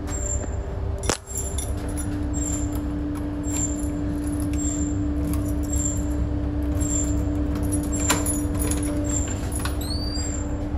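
Ship's engine-room machinery droning below deck: a steady low rumble with a constant hum over it. Short high metallic clinks repeat about once a second.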